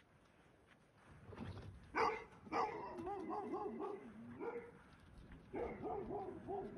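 Huskies whining and yipping in a quick run of short, rising-and-falling cries that start about a second and a half in.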